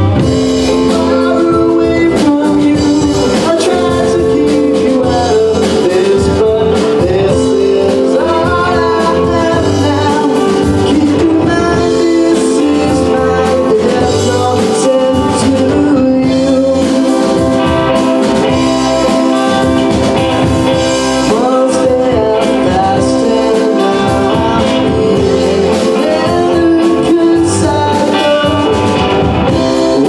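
Live band playing a song: electric guitar, bass guitar, drum kit and a Roland stage piano, loud and continuous throughout.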